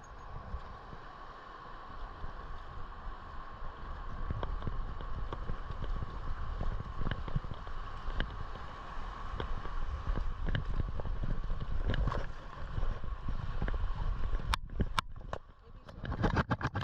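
Wind buffeting a moving camera's microphone over ocean surf, a steady rumbling hiss, with a few sharp clicks near the end.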